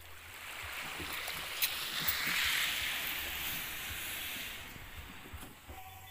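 Water washing: a rushing hiss that swells over about two seconds and slowly fades, with a few faint clicks.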